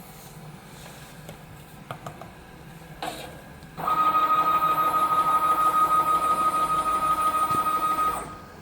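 Spice powder filling machine running a dosing cycle: about four seconds in, its drive motor starts a loud, steady whine that holds for about four seconds and then stops sharply. Just before it, a brief burst of noise.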